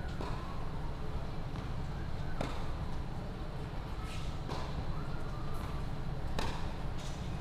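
Tennis ball struck by a racket twice, about four seconds apart, with fainter ball bounces and a few short squeaks on the hard court in between. A steady low rumble of wind on the microphone runs underneath.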